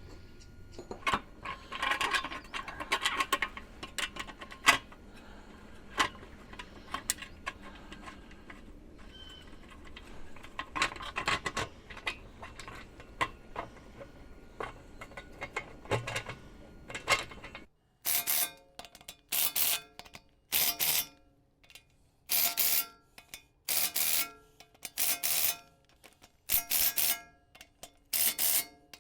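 Metal parts being handled and fitted, with scattered clicks, knocks and rubbing as the stub axle goes onto the swivel hub. About two-thirds of the way in, this gives way to a run of short, loud, rhythmic bursts, each with a steady tone in it.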